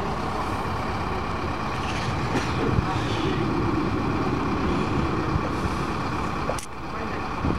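Heavy diesel engine of a truck-mounted mobile crane running steadily under load, with a single sharp knock about six and a half seconds in.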